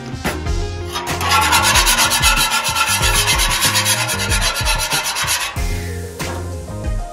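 Flat metal scraper dragged hard over the wet steel cooktop of a Blackstone griddle, a loud, gritty rasping scrape from about a second in that stops abruptly near the end, under background music with a steady beat.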